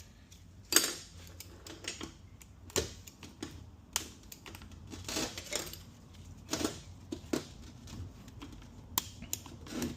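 Irregular metallic clicks, taps and clatter of tools and automatic-transmission parts being handled on a workbench during teardown.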